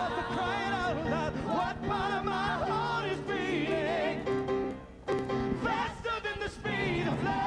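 Live music: wordless singing, long notes with a strong vibrato, over steady sustained accompaniment, dipping briefly about five seconds in.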